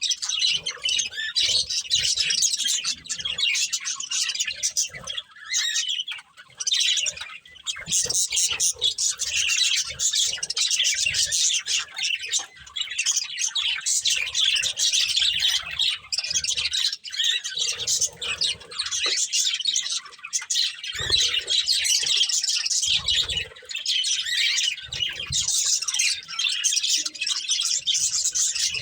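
Budgerigars chattering continuously, a rapid stream of high chirps and squawks, with a few soft low thumps in the second half.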